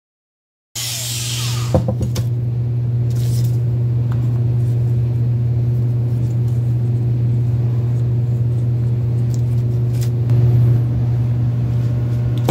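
A steady low machine hum starts abruptly about a second in, with a few faint taps and clicks over it; it swells briefly a couple of seconds before the end.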